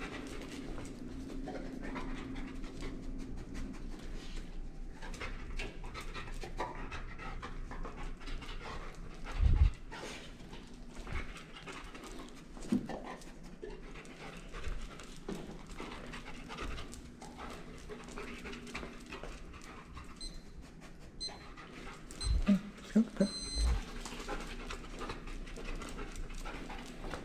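A black retriever panting steadily and rapidly while it sniffs around. A few short dull thumps stand out: a loud one about a third of the way in and a quick cluster of three near the end.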